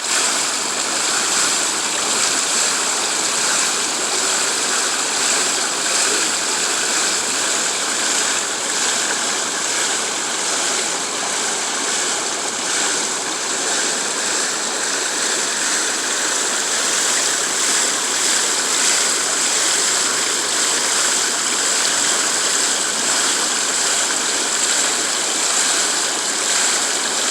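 Running water, a steady, even rush that holds the same level throughout.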